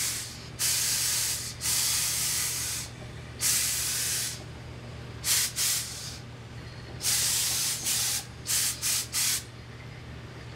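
Hose-fed industrial steam iron shooting steam in hissing bursts onto a mink fur coat to raise the pile: several blasts of about a second each, then a quick run of short puffs near the end.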